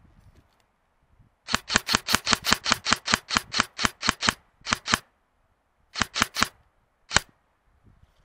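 Airsoft gun firing a quick string of about twenty sharp shots at roughly seven a second, then a burst of three and a single last shot.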